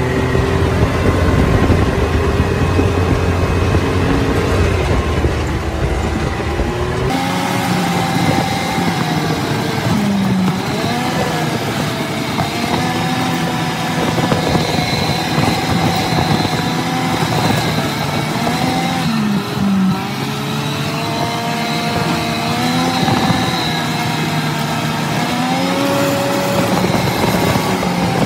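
Can-Am side-by-side's engine running while driving on a dirt road, over a steady rush of noise. About seven seconds in the sound changes abruptly from a deep, even hum to an engine note that rises and falls again and again as the throttle is worked.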